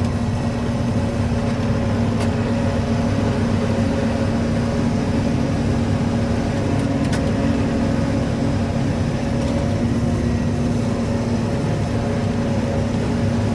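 John Deere 5830 self-propelled forage harvester running steadily under load while chopping corn, heard from inside its cab: a constant drone with a steady hum.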